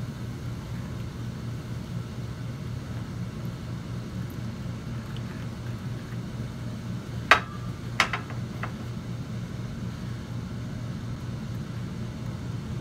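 A steady low hum, with two sharp clicks a little past the middle.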